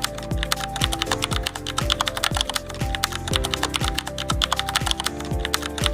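Rapid typewriter-style key clicks from a text-animation sound effect, laid over background music with a steady kick-drum beat.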